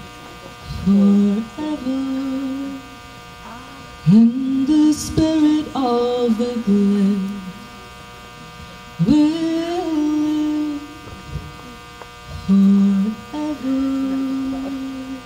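A woman singing unaccompanied into a microphone: slow phrases of long held notes that slide up into pitch, with a steady electrical mains hum underneath.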